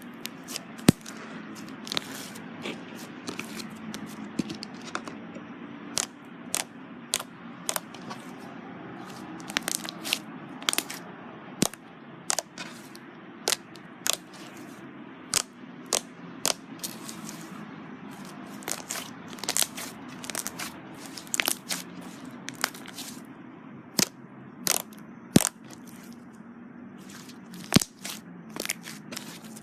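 Slime being squeezed and pressed by hand, giving irregular sharp crackles and pops, several a second at times, over a steady low hum.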